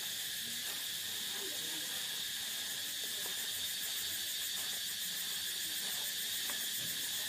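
Steady high-pitched drone of insects, with faint crinkling and rustling as a hand in a plastic bag tosses salad in a steel bowl.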